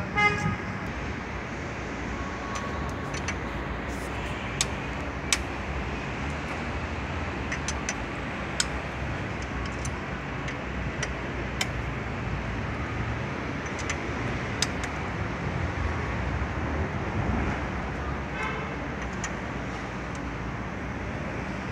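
Sharp metallic clinks of hand tools on the engine's valvetrain as the cylinder head of a Honda Integra is being dismantled, a dozen or so scattered through, over steady traffic noise.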